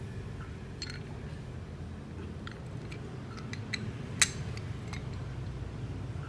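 Small metal parts of a Yamaha Mio scooter's CVT clicking and clinking as they are handled during disassembly, with a sharper clink about four seconds in, over a steady low hum.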